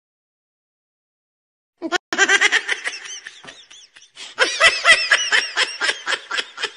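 High-pitched laughter in quick ha-ha pulses, starting about two seconds in after a short silence, with a brief pause partway through.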